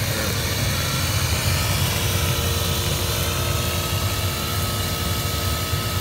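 Sapphire Scientific diesel water heater running at full flow: a steady low engine-like hum under the even hiss of a jet of hot water and steam from a hose nozzle.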